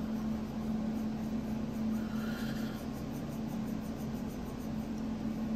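Faint handling sounds of a Chaves Scapegoat folding knife as its blade is swung open and shut on the pivot, soft rubbing with no clear detent clicks, over a steady low hum.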